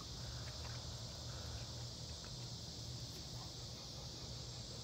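Steady high-pitched chorus of insects singing outdoors, with a low steady hum underneath.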